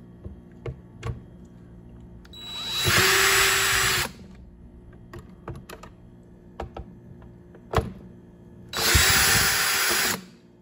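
Electric screwdriver running in two bursts of about one and a half seconds each, the second starting about nine seconds in, backing screws out of a leaf blower's plastic housing. Light clicks of handling come in between.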